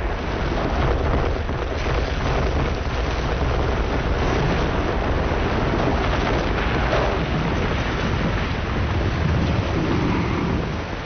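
Collapse of the World Trade Center South Tower: a loud, continuous roar and rumble of the falling building and its debris, heavy in the low end and without a break.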